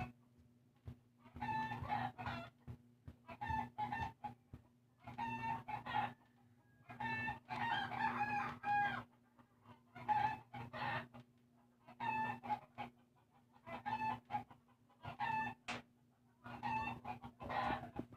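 Chickens calling, a run of short calls about every two seconds, over a steady low hum.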